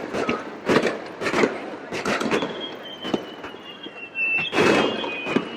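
Fireworks going off in a rapid run of bangs and crackles, joined about two seconds in by a steady high whistle that sinks slightly in pitch.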